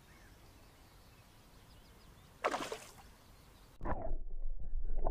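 A single splash of water about halfway through, then muffled churning and sloshing heard from underwater as a hand holds a fish below the surface to release it.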